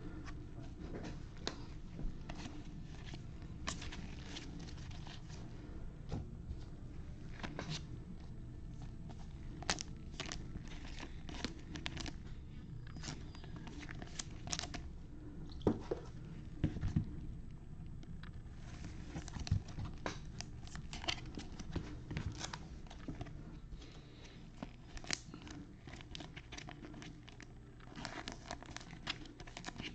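Foil trading-card pack wrappers crinkling and tearing as gloved hands open packs of Bowman baseball cards and handle the cards, a run of scattered crackles and clicks with a few sharper snaps.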